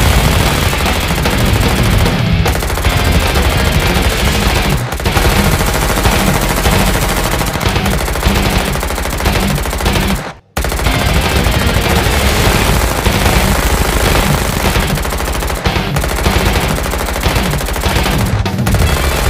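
Sustained machine-gun fire sound effect, rapid continuous automatic fire. It cuts out for a split second about halfway through, then resumes.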